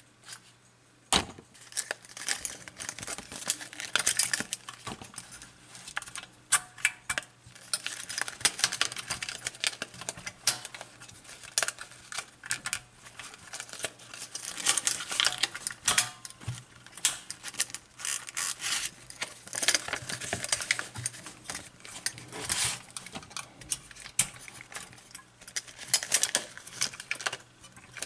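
Handling noise of 120 roll film being loaded into a Kiev 60 camera: the backing paper rustles and crinkles while hands, spool and camera parts make a steady run of small clicks and knocks.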